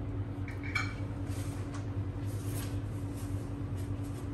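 A rubber spatula working setting egg around a nonstick skillet: faint soft scrapes and a low sizzle over a steady low hum.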